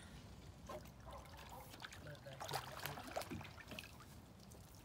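Faint trickling and dripping water from a paddle being dipped and lifted beside a small wooden boat, with a few light clicks and knocks.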